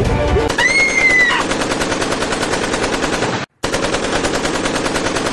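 Automatic rifle fire, a continuous rapid stream of shots starting about half a second in, breaking off abruptly for a moment around three and a half seconds and then going on. A brief high-pitched sound, falling slightly, rides over the first second of the firing.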